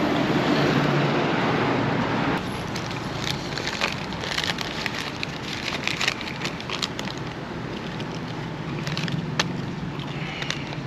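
Road traffic passing close by for the first couple of seconds, then paper crinkling and rustling as it is handled near the microphone. The crackling is thickest in the middle and comes again near the end.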